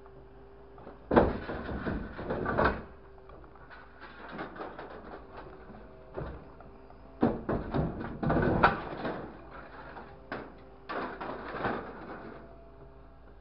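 Scrap corrugated sheet metal clattering and scraping as a grapple truck's orange-peel grapple handles it. The crashes come in three bursts, about a second in, around eight seconds in and near the end, with scattered knocks between. Under them is the low steady hum of the truck's engine and hydraulics.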